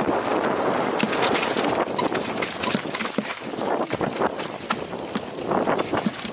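Mountain bike descending a rough dirt trail, heard from a helmet-mounted camera: tyres crunching over dirt and stones with the bike rattling and clattering, many irregular sharp knocks as it rides over roots and rocks.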